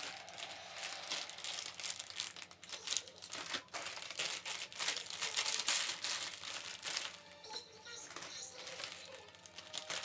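Plastic snack wrappers crinkling and rustling as packaged biscuits and crackers are handled and packed upright into a plastic basket. The crinkling comes in quick, irregular bursts, loudest around the middle and thinning out over the last few seconds.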